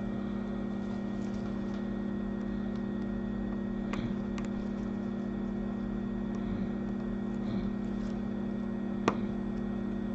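Steady electrical hum of running bench equipment, with a few light clicks about four seconds in and again near the end.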